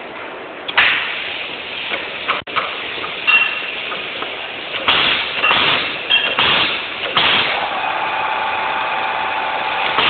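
Benchtop automatic wire stripping machine cycling: a series of short hissing bursts with clacks, and a few brief beeps. From about seven and a half seconds in, a steady hum with a whine.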